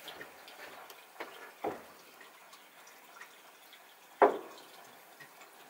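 A few scattered sharp clicks and knocks against a quiet background, the loudest about four seconds in.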